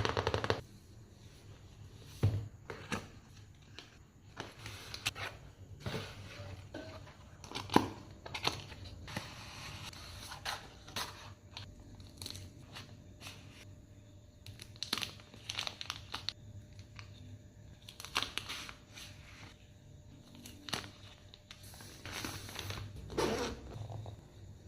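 Packaging being handled and opened: crinkling and rustling of wrapping, with scattered clicks and taps from the box and its parts.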